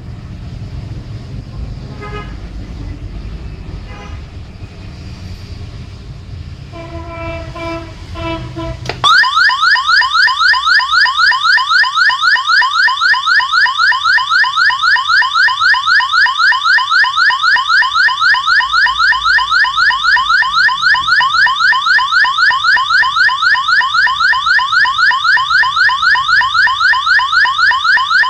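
Loudspeaker fed by an AT89S52 microcontroller's tone output through an L298N driver. It gives a few short beeps, then about nine seconds in a loud siren-like tone starts abruptly: a rising sweep repeated several times a second.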